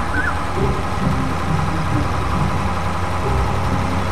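Heavy machine's engine idling steadily, a low continuous rumble.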